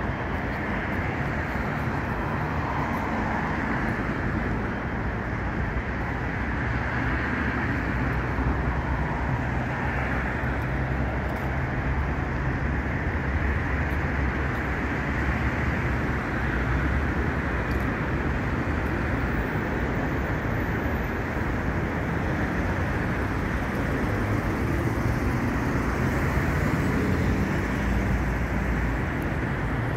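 Steady city road-traffic noise: a continuous rumble of cars on the street.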